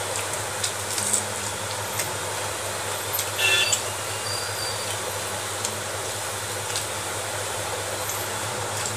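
Eating by hand: fingers mixing rice on a metal plate and small mouth clicks of chewing, over a steady background hum, with a short louder ringing sound about three and a half seconds in.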